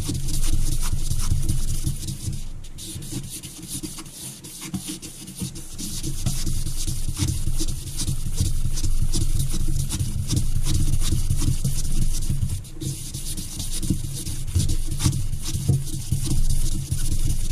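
Wet-and-dry abrasive paper looped around a Rover 3.5 V8 crankshaft journal, worked rapidly back and forth by hand to polish out marks on the journal. The rubbing is steady and scratchy, eases off briefly around the third to fifth second, then picks up again.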